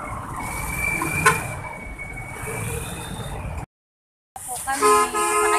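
Traffic on a city street: vehicles running past with steady road noise and a sharp click just over a second in. It cuts off suddenly into a moment of silence, then a person's held voice comes in near the end.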